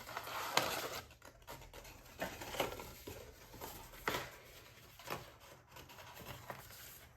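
Paper and cardboard rustling and scraping as an album's printed inclusions are handled and slid out of their packaging, with a few short sharp taps.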